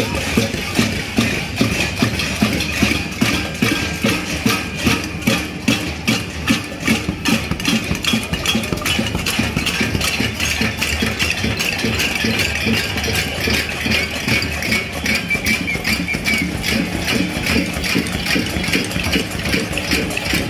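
Many people in a marching crowd banging pots and pans, a dense clatter of metal strikes with a ringing metallic edge. The beat pulses about twice a second at first, then becomes a more even, continuous clatter.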